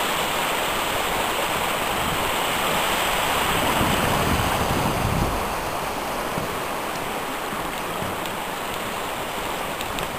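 Steady rush of a fast-running creek, running high. About halfway through, a gust of wind buffets the microphone.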